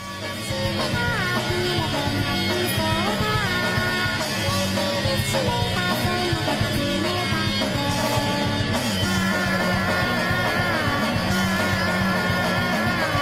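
Rock music with a melody line over a full band.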